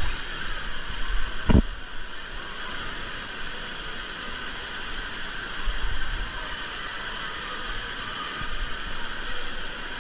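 Steady hiss of an indoor water park: running water and echoing hall noise. A dull low thump comes about a second and a half in.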